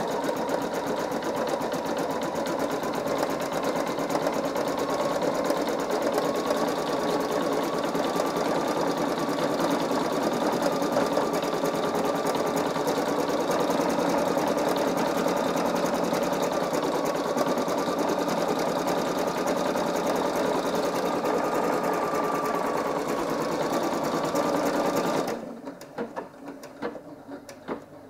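Singer EM9305 embroidery machine stitching out a design, its needle running steadily at speed with a rapid, even chatter and hum. About 25 seconds in, the stitching stops abruptly, leaving quieter irregular clicks.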